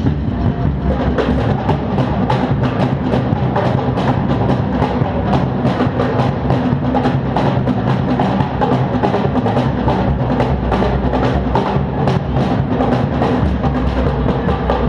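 Drum kit played at a fast, steady pace, recorded through a GoPro HERO 3 Black's built-in microphone.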